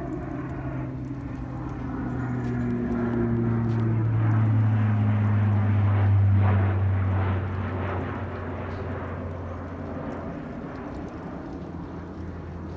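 Low-flying propeller airplane passing overhead: a steady engine drone that grows to its loudest about halfway through, drops in pitch as it passes, then fades.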